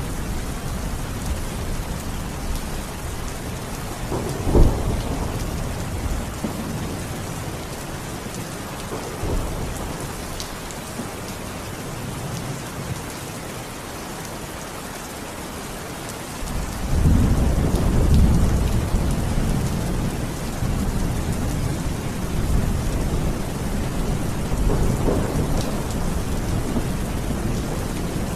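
Steady rain falling in a thunderstorm, with a sharp thunderclap about four seconds in and a long rolling rumble of thunder starting a little past halfway.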